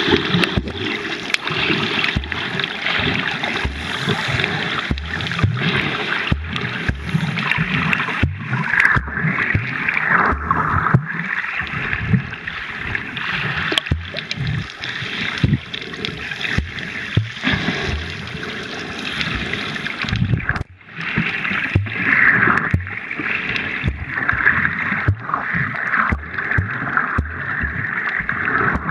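Water sloshing and gurgling around an underwater camera as a snorkeler swims, with irregular knocks and swishes from the water moving past the housing; it drops out briefly about two-thirds of the way through.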